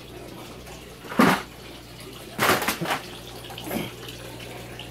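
Water trickling steadily in an aquaponics grow bed, flowing from the system's PVC pipes, under a low steady hum. A few brief louder noises come about a second in and again around halfway.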